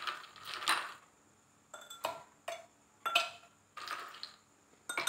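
Ice cubes clinking, about eight short sharp clinks at irregular intervals, as they are picked out of a bowl and dropped into glasses of lemon drink.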